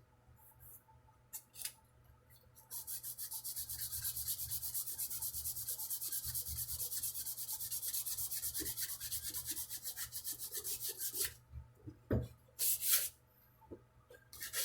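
Sandpaper rubbed fast back and forth on a wooden guitar neck, sanding off old red finish. A few single strokes open it; a quick, even run of several strokes a second goes from about three seconds in to about eleven seconds, and two or three single strokes follow.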